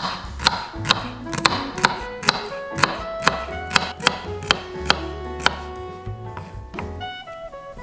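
Chef's knife slicing a celery stalk on a wooden cutting board: crisp, evenly spaced chops, about two and a half a second, that stop about five and a half seconds in.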